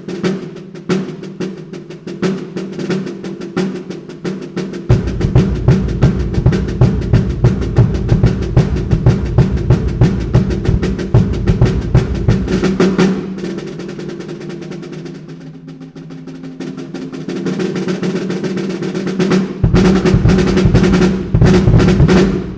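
Snare drum played in rapid strokes and rolls with an old bass-drum head laid loose over its batter head, which changes the snare's tone without retuning it. A deeper low drum joins about five seconds in, drops out past the middle, and comes back near the end.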